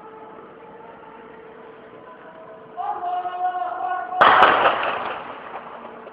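A single sharp, loud blast of weapon fire about four seconds in, echoing for about a second before dying away, over a steady hum.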